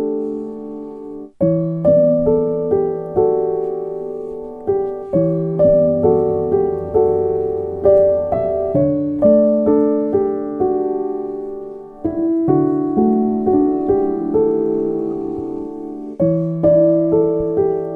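Background music: solo piano, notes and chords struck about once or twice a second and left to ring out.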